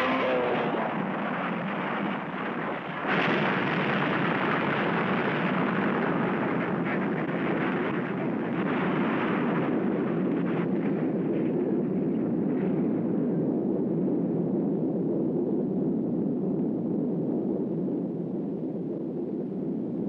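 Cartoon explosion sound effect: a long continuous blast and rumble, with a sharp burst at the start and another about three seconds in. After about ten seconds the hiss drops away, leaving a steady lower rumble.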